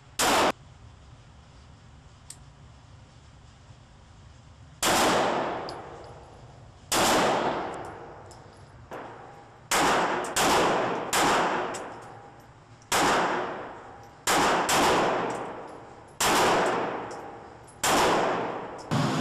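Gunshots fired one at a time at an irregular pace, about a dozen in all, each sharp crack trailing off in a long echoing decay.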